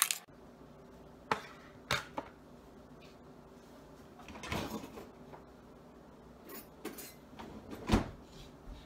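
Household handling sounds at a kitchen counter: a few light knocks and clatters as a tub, its lid and a utensil are picked up and set down, with a shuffling stretch midway and one louder thump near the end.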